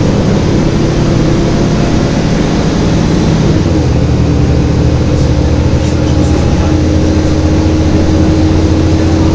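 Volvo B7LA bus's diesel engine running under way, heard inside the passenger cabin as a loud, steady drone with a hum. The engine note shifts and strengthens about three and a half seconds in.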